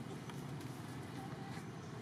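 Steady outdoor background noise with faint distant voices and a few soft ticks.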